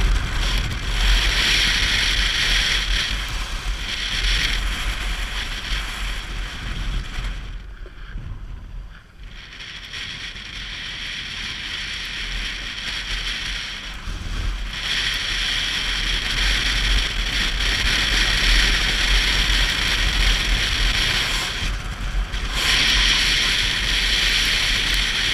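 Wind rushing over the microphone of a moving motorcycle, with the low buffeting that riding at speed gives. It drops away about eight seconds in and again briefly near the end, then builds back up.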